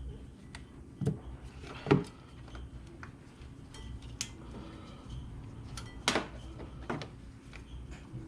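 Scattered sharp clicks and knocks from hands handling brake pads and the plastic wear-sensor parts, the loudest about two seconds in and another about six seconds in, over a low steady hum.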